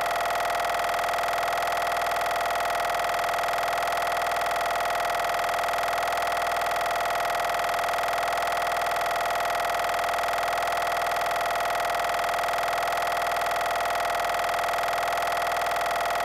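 Live experimental harsh-noise electronics: a dense, unchanging drone of buzz and hiss with one strong held mid-pitched tone.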